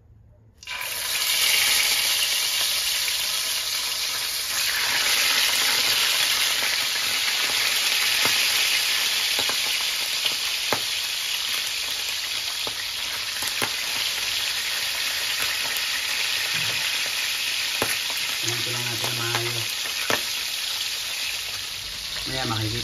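Bangus (milkfish) slices frying in very hot oil in a pan. The sizzle starts suddenly as the fish goes in and runs on as a dense hiss, with scattered pops of spattering oil.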